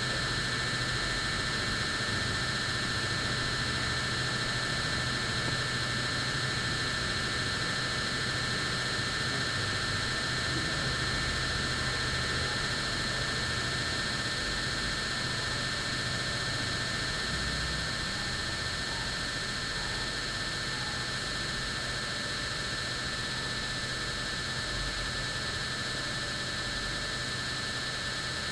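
Steady electrical hum and hiss, with a few constant high whines and no ringtone or melody; the sound slowly gets a little quieter over the stretch.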